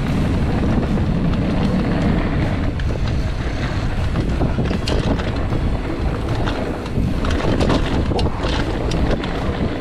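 Wind rushing over the microphone as a mountain bike speeds down a dirt trail, with tyre roar and the bike's clattering and knocks over bumps and roots.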